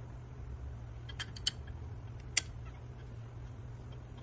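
A few small sharp clicks as a metal part is handled and fitted by hand at a Brembo four-piston brake caliper, the two loudest about a second apart near the middle, over a steady low hum.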